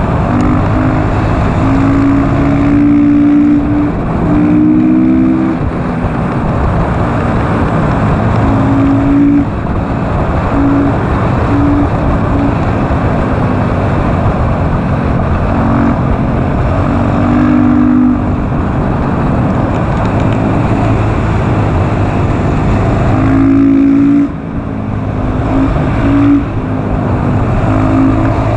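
KTM SMC R supermoto's single-cylinder engine running hard, its pitch stepping up and down with throttle and gear changes, under heavy wind rush on the bike-mounted microphone. The engine note drops out briefly about three-quarters of the way through as the throttle is closed.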